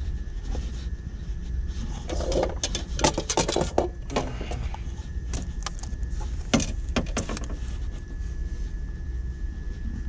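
A steady low machinery drone, with clusters of sharp clicks and knocks from hands handling a fire alarm control panel's loose front cover and its wiring, mostly about two to four seconds in and again near seven seconds.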